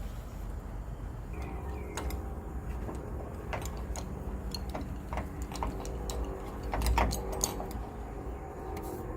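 Scattered metallic clicks and taps of deadbolt lock parts being handled and fitted into a door, louder around seven seconds in, over a steady hum that starts about a second and a half in.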